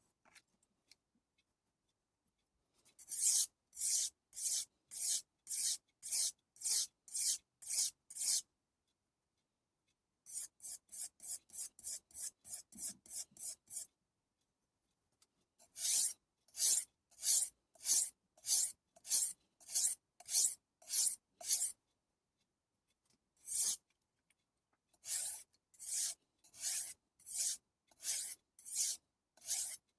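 A Global G-48 santoku's steel blade being stroked back and forth on a wet Chroma whetstone: a scraping hiss about twice a second, in runs of a dozen or so strokes with short pauses between them. A softer, quicker run comes near the middle.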